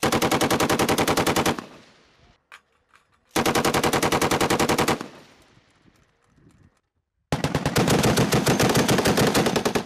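Three long bursts of belt-fed machine-gun fire, each a rapid, even string of shots. The first two bursts come from an M240B medium machine gun and last about a second and a half each. The third starts about seven seconds in and is still going at the end.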